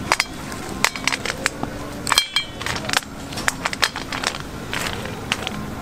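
Irregular light clicks and knocks of garae-tteok rice cake sticks and grilling stones as the sticks are laid and turned by hand on a pan of heated stones, over a steady low background hum.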